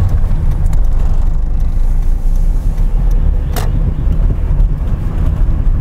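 Car engine and road rumble heard from inside the cabin as the car drives slowly through a right turn, with a single short click about three and a half seconds in.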